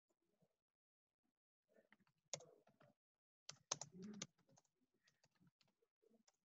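Faint clicking and tapping on a computer keyboard, in a short cluster near the middle, with a few softer clicks after it; otherwise near silence.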